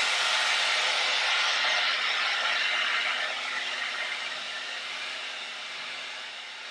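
CHI Deep Brilliance hair dryer running, a steady rush of air with a faint motor hum underneath. It is louder for the first three seconds, then drops and stays lower.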